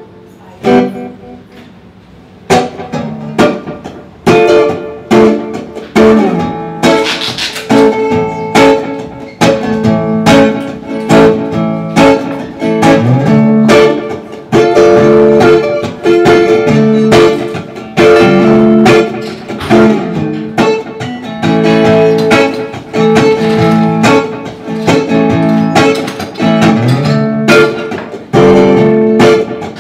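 Electric guitar played solo as a song's intro: a few spaced picked notes at first, then a steady, rhythmic strummed chord pattern from about four seconds in.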